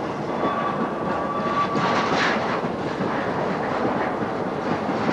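Intermodal freight train of empty well cars rolling past, its wheels rumbling and clacking over rail joints. A thin, steady high squeal runs for the first two seconds or so.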